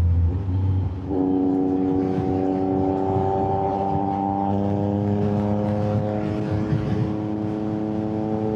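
Yamaha MT-09's three-cylinder engine under way. The note breaks off briefly about a second in, then comes back under throttle and pulls steadily, its pitch rising slowly, over a rush of wind.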